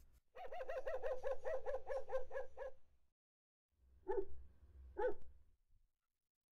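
A dog's wavering whine that rises and falls rapidly in pitch for a couple of seconds, then two short barks about a second apart.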